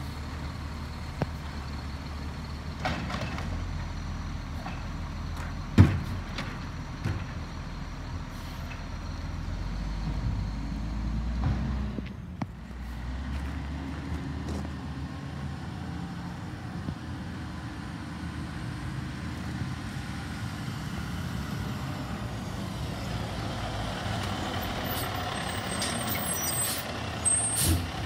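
Automated side-loader garbage truck's diesel engine running as the truck drives along the street and pulls up to a cart, with a single sharp bang about six seconds in. Near the end the engine grows louder and a hiss of air brakes comes as it stops.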